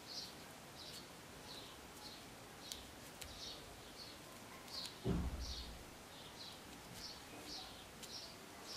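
Faint, steady chirping of a small bird in the background, short high chirps about twice a second, with a dull low thump about five seconds in.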